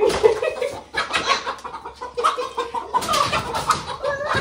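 Several hens clucking.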